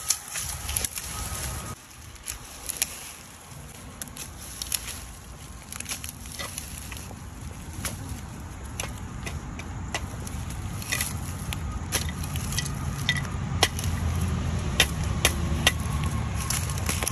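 Metal garden rake dragging and poking through dry twigs and dead leaves, with many scattered snaps and crackles of brittle sticks. A low rumble builds in the second half.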